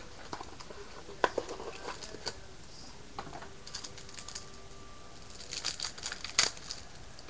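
Trading card pack wrapper being torn open and crinkled by hand: scattered crackles and small clicks, with a sharper crackle about a second in and another near the end.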